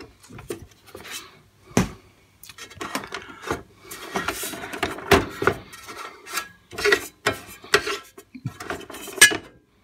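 Hands handling the platter of a Pioneer PL-Z81 belt-drive turntable, turning it, reaching through its access hole and lifting its edge: a string of irregular knocks, clacks and rubbing.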